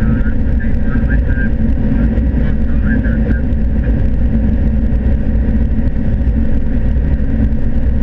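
Steady drone of a 2012 John Deere S680 combine heard from inside its cab, its engine and threshing machinery running under load while it harvests corn with a 12-row 612C corn head.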